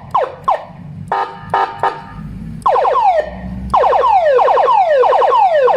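Chinese electronic siren sound box (model CJB) sounding through a speaker and switching between tones: quick falling chirps a few times a second, a short pulsed tone, then a fast repeating falling yelp from about halfway through.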